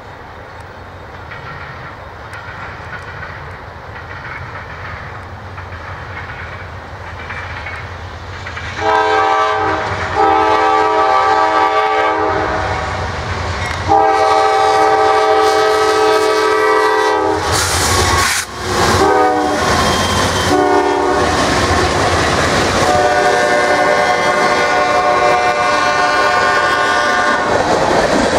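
Norfolk Southern freight train led by three GE diesel locomotives, the engine rumble growing louder as it approaches. About nine seconds in the lead locomotive's air horn sounds two long blasts, a shorter one and a final long one, the grade-crossing pattern, as the locomotives pass close with their engines running loud and the wheels clicking over the rails.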